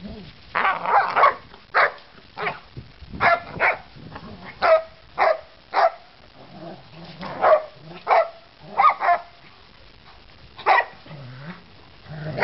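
Dogs barking during rough play: a dozen or so short, sharp barks at irregular intervals, some in quick pairs.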